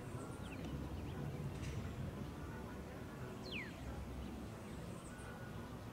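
Faint outdoor ambience: a low, steady rumble with a bird's short downward-sliding whistles, once about half a second in and again past three and a half seconds.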